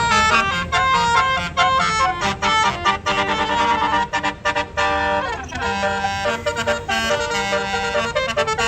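Bus 'telolet' horn, a set of multi-tone air horns, playing a quick melody of changing notes, with a brief falling pitch glide about five seconds in.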